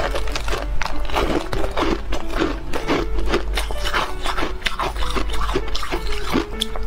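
Close-up crunching and chewing of frozen ice: a quick run of crisp, crackly bites and crunches, with faint steady music underneath.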